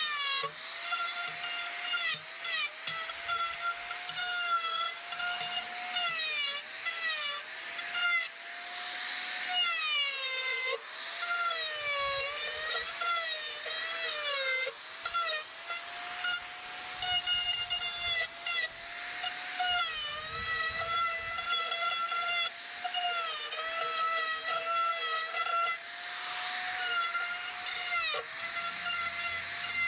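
Hand-held electric die grinders with carving burrs cleaning up the edges of carved sign letters: a high steady whine that dips in pitch again and again as the burr bites into the wood and picks back up when it is eased off.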